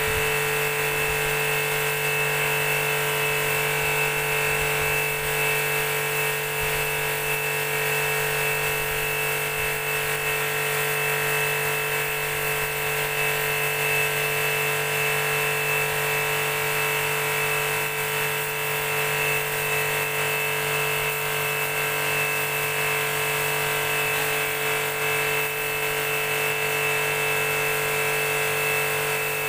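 High-pressure washer's motor and pump running steadily: an even mechanical hum with several steady tones that do not change.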